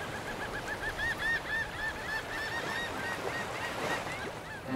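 A bird calling: a quick run of short arched notes, about four a second, fading away over about three and a half seconds.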